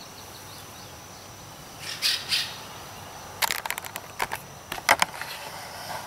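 Footsteps and rustling through weeds and grass: a soft brush of leaves about two seconds in, then an irregular scatter of sharp crunches and snaps in the second half, over a steady faint high hiss.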